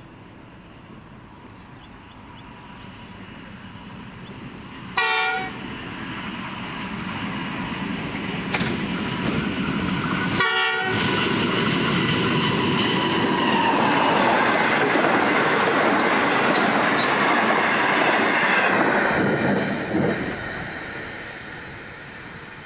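Pacific National NR class diesel-electric locomotive sounding two short horn blasts, about five and ten seconds in, as it approaches. Then the locomotive and its six passenger carriages pass, the engine and wheels on the rails growing loud, before the sound drops away near the end.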